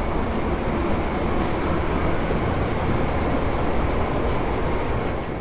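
Steady rumble and hiss of the Amtrak Auto Train standing at the boarding platform with its diesel locomotives running.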